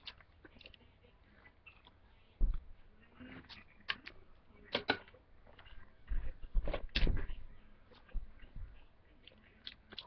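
Irregular thumps and knocks of footsteps and bumps right beside a floor-level webcam, with a few sharp clicks; the heaviest thuds come about two and a half seconds in and in a cluster from about six to eight and a half seconds in.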